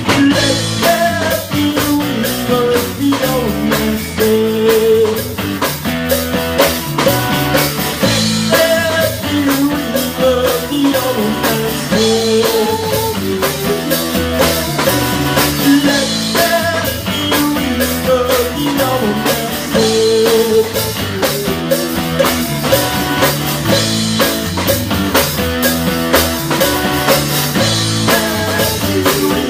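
Rock band playing live: drums and guitars in an instrumental passage of the song, with a wavering lead melody over a steady beat.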